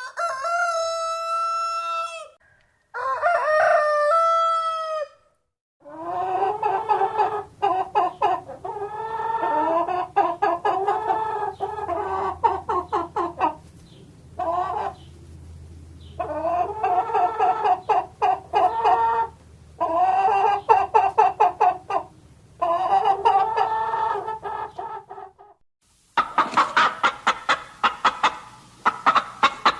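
Chickens: a rooster crows twice, then hens cluck and cackle in repeated quick bouts. Near the end come fast, clipped clucks at a few per second.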